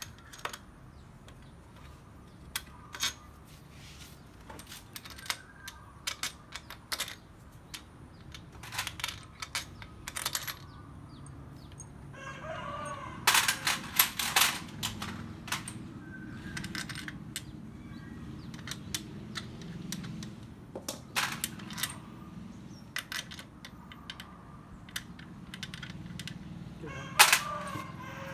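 Irregular metallic clicks, clinks and knocks of hand tools and engine parts being handled during motorcycle engine assembly, with a louder flurry of hits about halfway through and a sharp knock near the end. A short animal call sounds twice in the background.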